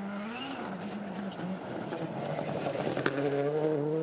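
Rally car engine note dying away after a loud pass, its pitch falling. About three seconds in, a steadier engine note builds again, with a single sharp click just before.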